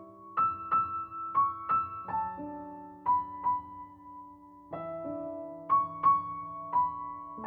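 Background music: solo piano playing a slow, gentle melody of single struck notes over sustained lower notes.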